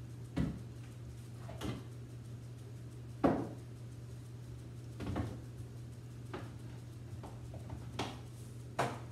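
Jars and containers being taken from a kitchen cabinet shelf and set down on the counter: a series of short knocks and clinks, the loudest about three seconds in, over a steady low hum.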